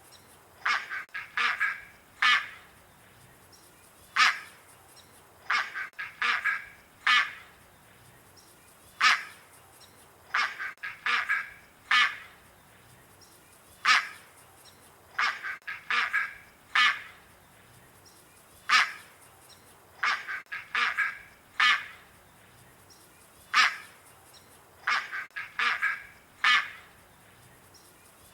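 Bird calls in an evenly repeating cycle: one sharp call, then a quick run of three or four calls, coming round about every five seconds.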